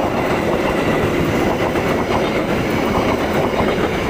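Passenger train carriages rolling past at speed close by: a steady loud rush of wheels on the rails, with the clatter of the wheels over the track.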